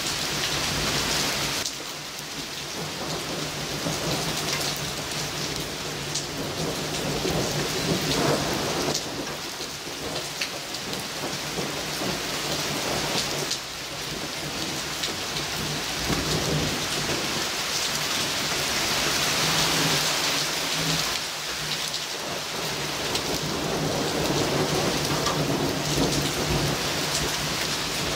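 Heavy thunderstorm downpour: rain pouring steadily onto leaves and surfaces, with thunder rumbling under it.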